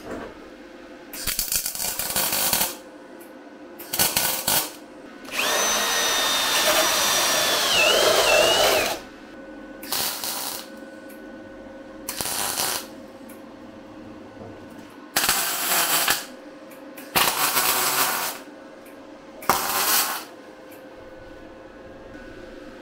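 A power tool run in about eight short bursts. The longest lasts about four seconds and carries a high whine that dips in pitch near its end.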